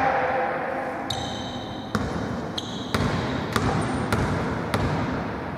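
Basketball bouncing on a hardwood court, about seven irregular bounces, with sneaker squeaks on the floor in a gym hall.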